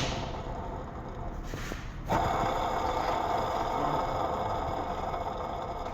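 Car's AC compressor running under the hood, a steady mechanical noise that gets suddenly louder about two seconds in, the kind of noise checked for a failing compressor bearing or clutch.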